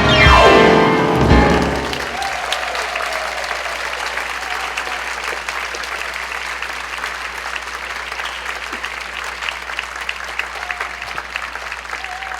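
The song's accompaniment ends about two seconds in with a falling run, then an audience applauds steadily, with a few whoops.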